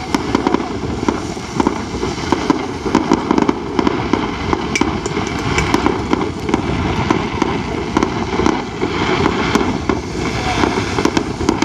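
Fireworks going off in a continuous rapid crackle, a dense stream of small cracks and pops with no break.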